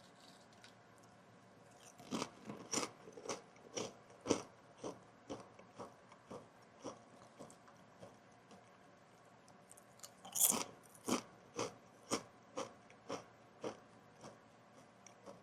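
Kettle-cooked potato chips being bitten and chewed: a bite about two seconds in, then steady crunching chews about two a second, a louder fresh bite about ten seconds in and more chewing that thins out near the end. A fan runs as a steady hiss underneath.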